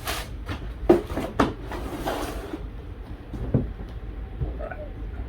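Shoebox and sneakers being handled: a few sharp knocks and bumps, about one and one-and-a-half seconds in and again after three and a half seconds, with a brief rustle around two seconds in.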